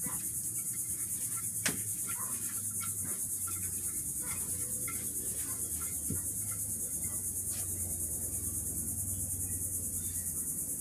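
A steady, high chorus of insects chirring. Over it come a few light clicks and taps from hands working raw shrimp on a plate, the sharpest click a couple of seconds in.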